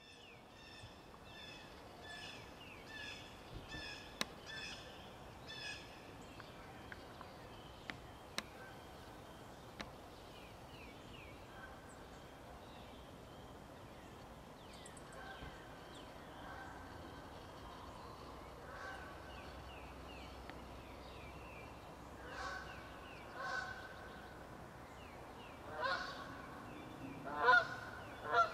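Goose honking, repeated calls that grow much louder near the end as the goose approaches.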